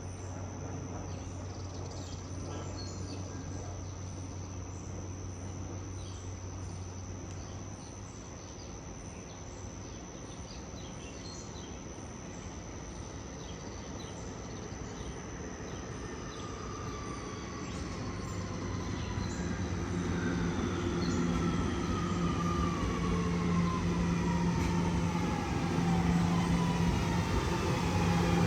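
Kawasaki R211S electric subway train arriving and braking: its propulsion whine is heard as several tones sliding down in pitch as it slows, growing louder over the second half along with the rumble of the cars on the rails.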